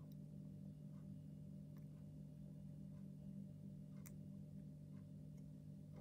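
Near silence: a steady low electrical hum with a few faint scattered ticks.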